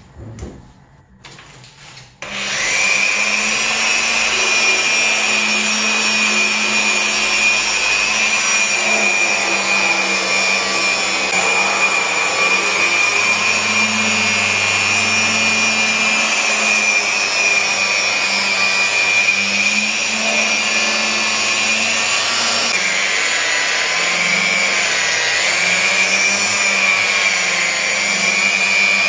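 Electric rotary polisher with a foam pad running on car paint: a steady high motor whine that starts abruptly about two seconds in. Near the end its pitch drops a little and wavers as the pad works the bonnet.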